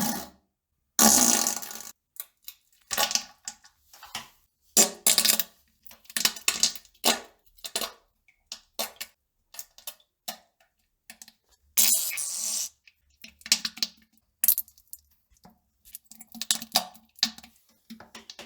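An irregular series of short fart and defecation sounds with silences between them. Several have a low buzz, and longer ones come about a second in and about twelve seconds in.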